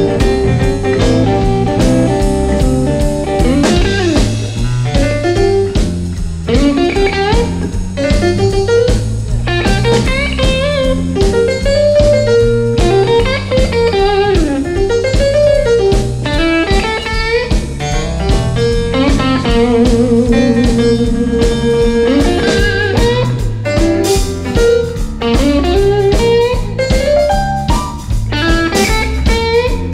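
Background music: a bluesy electric guitar melody with bending notes over a steady bass and drum beat.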